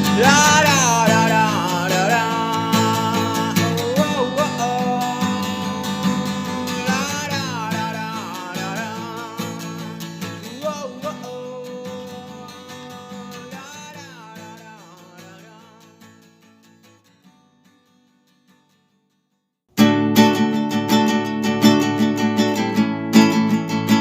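An acoustic guitar song fades out over about seventeen seconds, a melody line sliding in pitch above the strummed chords. After a couple of seconds of silence, another strummed acoustic guitar song starts abruptly.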